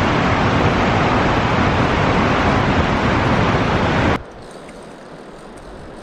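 Steady, loud rush of a mountain stream running over rapids, cutting off sharply about four seconds in to a much quieter background of flowing water.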